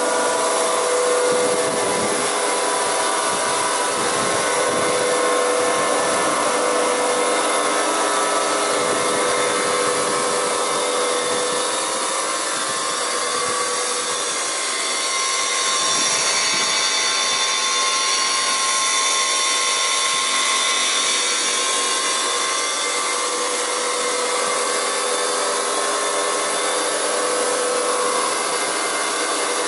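Weinig four-sided planer-moulder running, its cutter spindle motors spinning with a steady hum and several held tones over a hiss.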